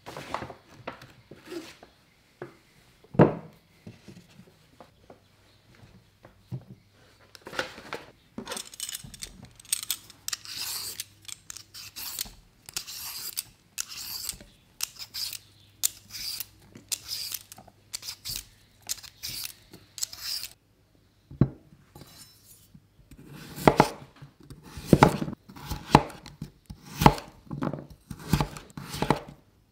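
A hand peeler scraping the skin off a carrot in repeated strokes, about one a second, then a kitchen knife chopping the carrot on a wooden cutting board in quick, sharp knocks. Before the peeling there are a few knocks, one of them loud about three seconds in.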